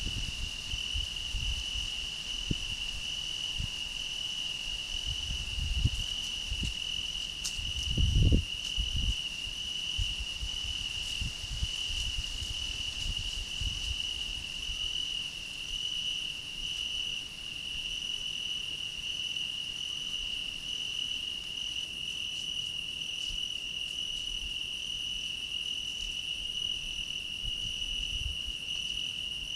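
A cricket trilling without a break on one steady high pitch. A few low thuds are mixed in, the loudest about eight seconds in.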